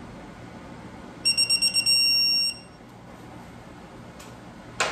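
Digital torque wrench beeping as it reaches its 15 ft-lb target on the sprocket bolts: a quick run of about six short high beeps, then a held tone for about half a second that signals the set torque is reached. A sharp knock comes just before the end.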